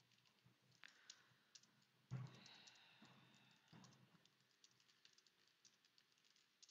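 Near silence with faint, scattered clicks of a computer keyboard being typed on, heard over the video-call audio, with a slightly louder click about two seconds in.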